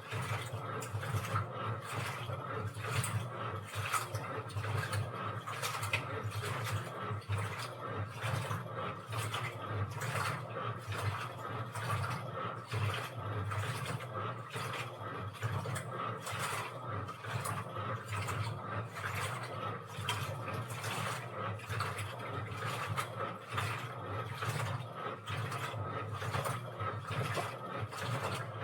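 Washing machine running: a steady motor hum with a regular click a little more than once a second as the drum turns.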